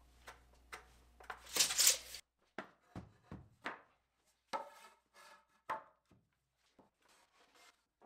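Wooden framing studs being handled, knocking and clattering against each other and the concrete floor in a string of irregular woody knocks. A brief scraping rub comes just before the knocks begin.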